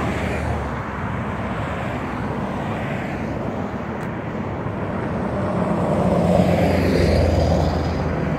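Road traffic passing on a multi-lane road, a steady rush of tyres and engines that swells louder as a car passes close near the end.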